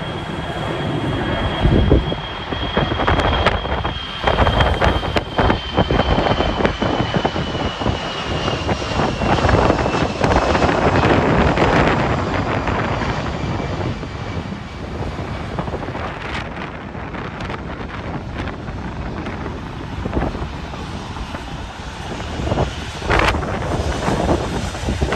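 Jet airliner passing, its engine whine sliding slowly down in pitch over the first ten seconds or so, over a steady roar. Gusts of wind buffet the microphone.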